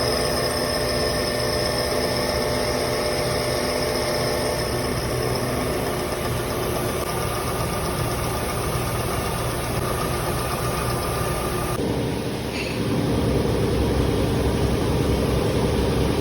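Milling machine running, a steady mechanical hum with several steady tones; about twelve seconds in the sound shifts abruptly to a lower, slightly louder hum.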